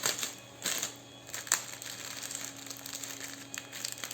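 Crinkling and rustling of a flower bouquet being handled, with leaves stripped from the stems: several short, sharp bursts in the first second and a half, then softer continuous rustling.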